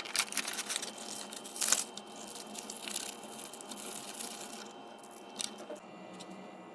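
Instant-noodle cup being opened: the paper-and-foil lid peeled back and a seasoning packet torn and handled, giving a run of crinkling and tearing with a sharp tear a little under two seconds in, then quieter rustling.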